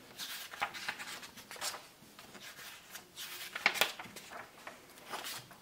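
Magazine pages being turned and handled: a handful of short, soft paper rustles and flicks.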